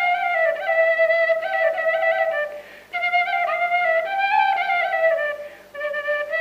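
Background music: a solo flute playing a slow melody in phrases, with short breaks about three and five and a half seconds in.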